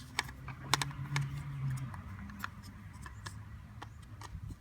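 Irregular small clicks and ticks as a Phillips screwdriver works a screw loose in a plastic interior door handle, over a faint low hum.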